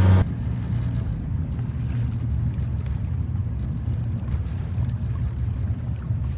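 A loud motorboat engine drone cuts off abruptly just after the start. It gives way to a steady low rumble of the boat out on the water.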